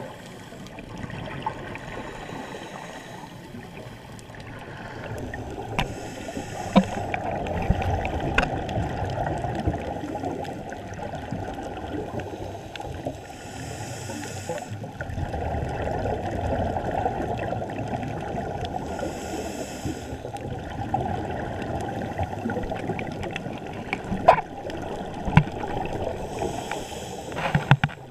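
Underwater scuba breathing heard through a camera's waterproof housing: the bubbling rush of exhaled air from a diver's regulator, with a short hiss about every five or six seconds and a few sharp clicks.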